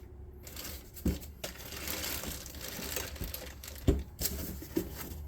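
Packaging crinkling and rustling as the amplifier's accessories are unpacked by hand, with two sharp knocks about one second and about four seconds in.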